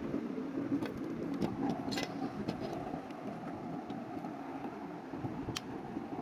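DECOOL plastic building bricks being handled and pressed together, giving a few sharp clicks over a steady background hum.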